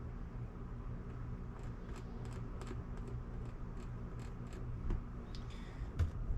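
A run of light, sharp clicks, several a second for about three seconds, with a few more near the end, over a steady low hum.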